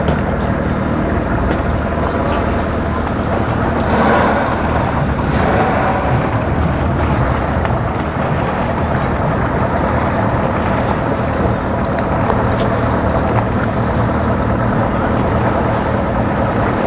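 Outboard motor idling steadily as a center-console boat moves at low speed, a constant low hum, with wind buffeting the microphone.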